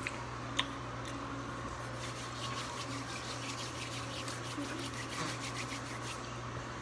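Chewing a chewy candy, with faint wet mouth clicks coming several times a second through the middle, over a steady low hum.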